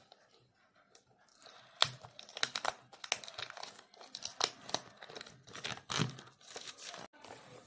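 OnePlus Bullets Wireless Z Bass Edition's cardboard box being opened by hand: crinkling and tearing of the packaging, a quick irregular run of crackles and scrapes starting about a second and a half in.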